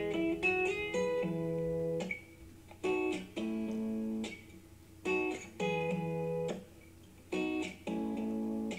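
Instrumental guitar intro of a pop-rock song. The guitar plays a repeating pattern of a short chord followed by a held chord, coming round about every two seconds.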